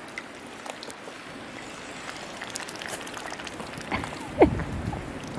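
Ducks dabbling in a pool of icy slush: faint sloshing of water and ice with scattered small clicks, and one short bird call falling in pitch about four seconds in.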